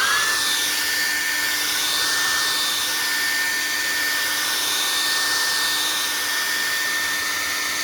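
Handheld hair dryer blowing steadily, drying wet acrylic paint on paper; its motor whine rises as it spins up at the start and falls away as it is switched off at the end.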